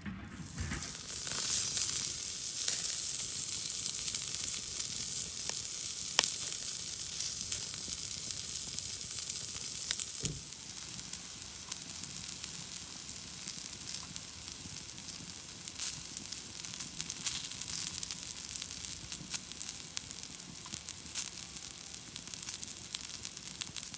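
Food frying in a hot pan: a steady sizzle full of fine crackles, starting abruptly and loudest in the first couple of seconds.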